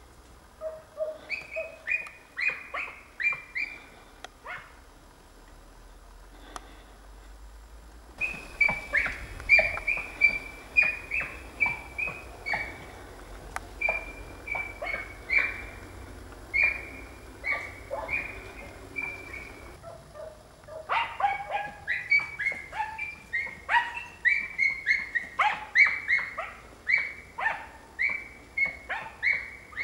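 Dachshund barking high and sharp at a wild boar in rapid bursts of about two to three barks a second, in three bouts with short pauses between them: the dog is baying to hold the boar.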